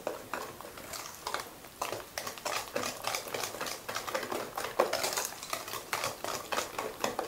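Wire whisk beating wet chocolate brownie batter in a stainless steel bowl: a quick, uneven run of clicks and scrapes as the wires strike the metal.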